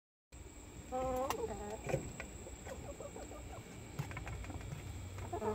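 Backyard hens clucking as they feed, with a louder pitched call about a second in and another near the end. Small sharp taps run through it, beaks pecking at a plate of frozen food.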